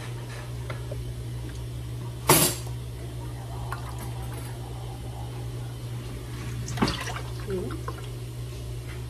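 Strawberry liquid scooped with a plastic measuring cup from a glass measuring jug and poured into a stainless steel bowl, with a sharp tap of the dishes about two seconds in and a smaller one near seven seconds, over a steady low hum.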